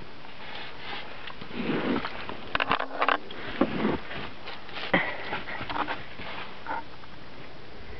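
Ibizan hound sniffing hard in irregular short bursts, nose to a car seat, with a few clicks and rustles as it shifts its feet.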